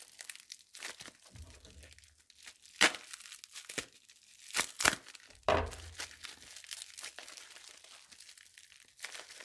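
Plastic bubble wrap crinkling and being cut and torn open by hand with a serrated knife to free a wrapped puzzle cube, with several sharp snaps of the wrap, the loudest about three and five seconds in.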